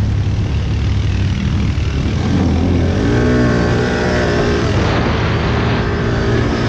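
ATV (quad bike) engine running and revving, its pitch rising about two seconds in and falling back near five seconds.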